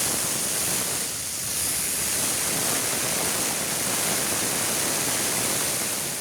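A steady, even hiss, strongest in the high range, fading out near the end.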